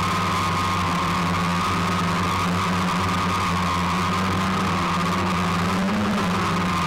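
Small multirotor drone's motors and propellers running with a steady whine, drifting slightly in pitch, heard loud from the drone's own camera microphone.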